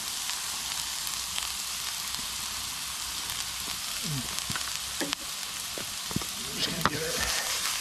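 Onions and mushrooms sizzling in butter in a frying pan over a campfire, with red wine just poured in. The sizzle is steady, with a few sharp ticks in the second half.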